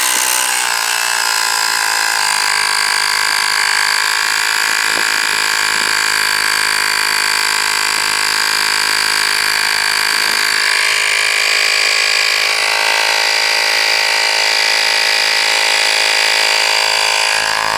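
Miniature 12-volt portable tire-inflator air compressor running steadily as it pumps air into a low truck tire, a loud, even, high-pitched mechanical buzz.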